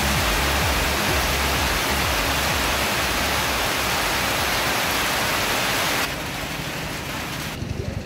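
Heavy rain pouring down and streaming off a roof's edge, a dense steady hiss. About six seconds in it turns quieter and thinner.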